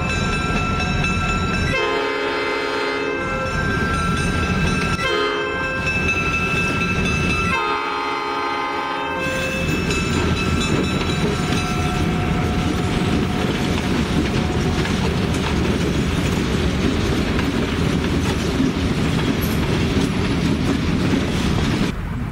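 Escanaba & Lake Superior diesel freight locomotives sounding their air horn three times: long, short, long. The locomotives and train cars then run past close by with a steady rumble of engines and wheels on rail.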